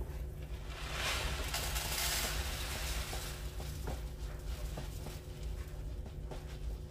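Dry Minute instant white rice pouring from its cardboard box into a measuring cup: a soft, pattering hiss, strongest from about one to two and a half seconds in. Underneath is the steady sound of a pot of water boiling on the gas stove.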